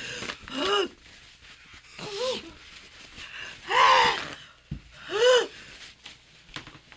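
A woman's pained cries and gasps, four of them, each rising then falling in pitch, the loudest about four seconds in: her reaction to the burn of a Carolina Reaper pepper she has just eaten.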